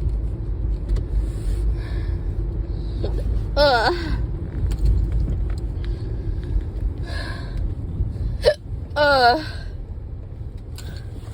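A woman's hiccups, deep and loud: two strong ones about four and nine seconds in, each a short squeak of voice that jumps up in pitch, with a few fainter catches between. Under them runs the steady low rumble of a car on the road, heard from inside the cabin.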